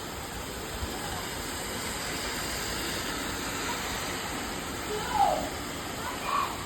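Heavy rain falling, a steady hiss. A short falling pitched sound about five seconds in and another brief one near the end stand out above it.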